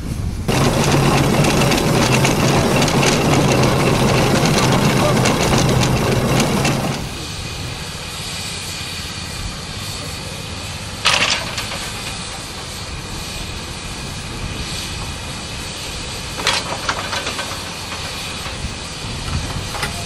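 A 1918 Fowler BB1 steam ploughing engine close by: a loud rush of steam over a low steady hum for about seven seconds, which then stops abruptly. After that comes a quieter steady background with two sharp knocks about five seconds apart.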